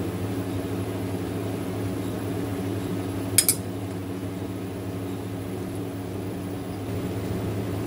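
Steady electric hum of an induction cooktop running with a flat pan heating on it. About three and a half seconds in, a metal spoon clinks twice against a steel mixing bowl as it is set down.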